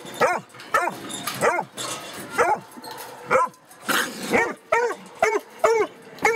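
Bluetick coonhound pups barking over and over, each bark short and rising then falling in pitch. The barks come faster in the second half, about two a second.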